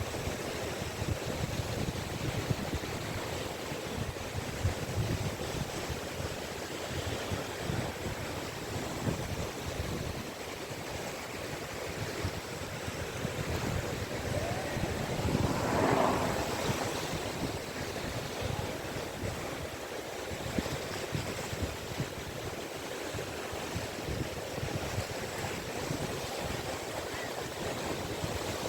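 Caspian Sea waves washing steadily onto a beach, with one bigger wave breaking more loudly about halfway through.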